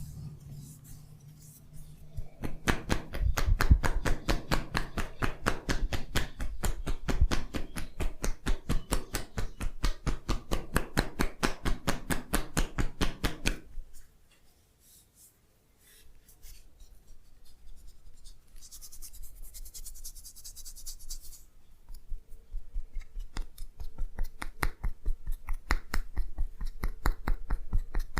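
Rapid rhythmic hand strikes of a massage: fast tapping or chopping on the body, many strikes a second. It stops for about two seconds midway, then resumes more softly.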